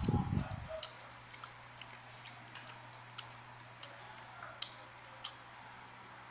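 Sharp, irregularly spaced mouth clicks and smacks from chewing a sour lemon wedge, over a faint steady low hum.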